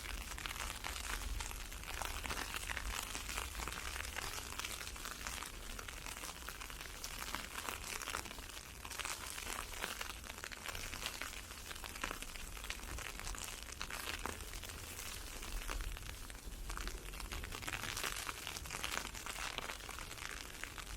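Ice pellets pattering on an umbrella, a dense, fine, steady crackle, with a low rumble underneath.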